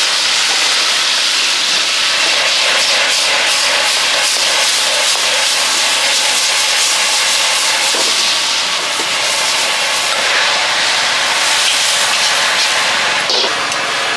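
Steady, loud hiss of wok cooking over a big gas flame: the burner running and the food sizzling in the wok, with faint scattered clicks.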